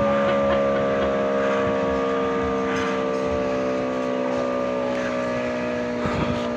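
4 kW SAD electromechanical fire-alarm siren winding down: a steady wail of several tones sliding slowly lower in pitch.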